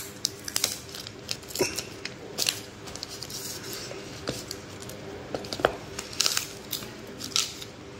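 Plastic packaging sheet crinkling in short bursts, mixed with light clicks and taps as a smartphone is handled and lifted out of its cardboard box.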